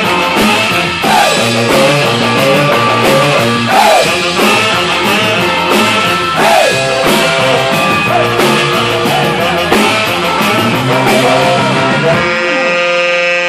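Live rock and roll band playing loud: saxophone leading over electric guitar, electric bass and drum kit. Near the end the drums and bass stop and a single long note is held.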